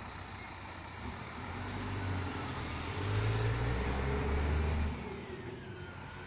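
Scania K420 coach's rear-mounted diesel engine accelerating as the bus pulls away, rising in pitch in steps and growing louder, then dropping off suddenly about five seconds in.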